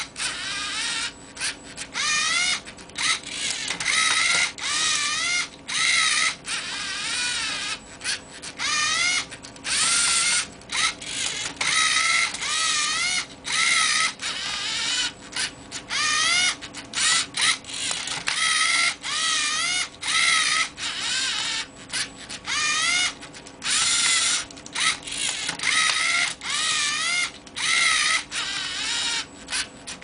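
Lego Mindstorms NXT servo motors and gear trains whirring in a rapid series of short stop-start bursts, each with a wavering whine, as the robot's arms flip, rotate and turn a Rubik's Cube.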